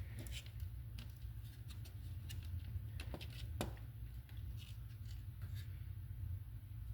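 Small clicks and scrapes of a power strip's switch and plastic housing being handled and worked loose, with two sharper clicks about three seconds in, over a steady low hum.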